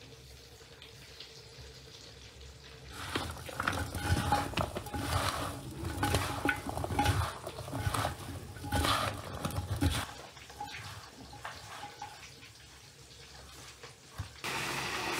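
Kitchen handling sounds: irregular clatter of dishes and pans with some water, starting about three seconds in and dying away after about ten seconds. Near the end a steady even noise starts suddenly.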